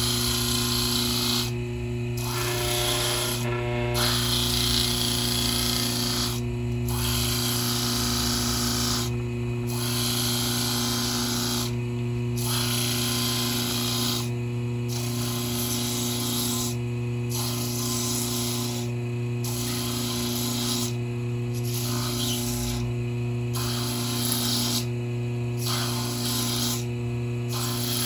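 Homemade disc sander, a washing-machine motor spinning a sandpaper disc glued to MDF, running with a steady hum while a keychain wheel is ground down against it at 45 degrees. The sanding hiss breaks off briefly every second or two and then starts again.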